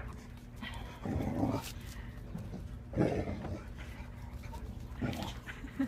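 Dog making three short, low, rough vocal sounds about two seconds apart, the first the longest, over a steady low hum.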